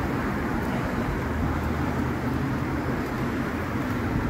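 Steady road traffic from cars passing on the road below, a continuous low rumble of tyres and engines.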